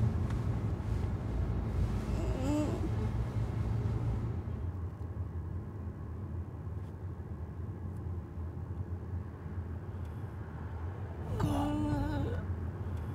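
Steady low rumble of road noise inside a moving car. A brief voiced murmur comes about two and a half seconds in, and a man's voice says "ge" ("brother") near the end.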